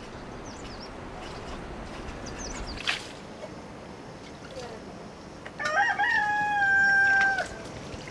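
A rooster crowing once past the middle: a short stepped rise, then a long held note that sags slightly before cutting off. Before it, small birds chirp faintly and there is a single brief knock.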